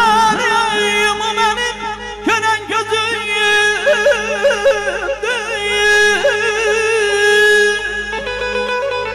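A man sings a mugham passage through the hall's sound system. He sweeps up into a high note at the start, then warbles through fast trill-like ornaments over steady held notes from the band.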